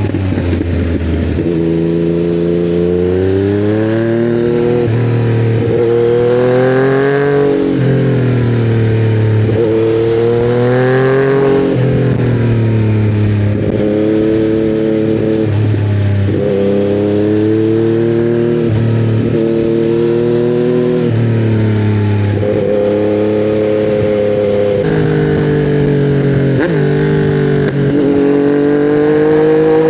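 2020 Yamaha MT-09 inline-three running through custom headers and a titanium Akrapovic silencer while riding. Its pitch climbs and falls again and again with throttle and gear changes, with a few steady stretches in between.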